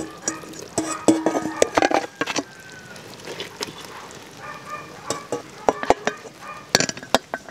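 Metal ladle clinking and scraping against a stainless steel stock pot and bowl as boiled duck pieces are lifted out of the broth and dropped into the bowl. The knocks come in quick clusters during the first two seconds and again from about five to seven seconds in.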